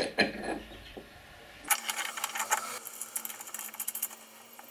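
Ratchet wrench clicking rapidly as a bolt is run in on the tow bar's lower mounting plates, after a few metal clinks of the bolt and plates near the start.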